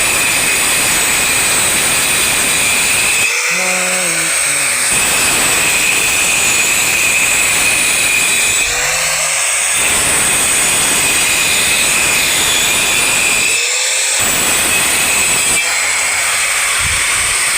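A power tool running hard in long stretches, with a steady high whine over a rough noise. It briefly eases off four times, near 4, 9, 14 and 16 seconds in.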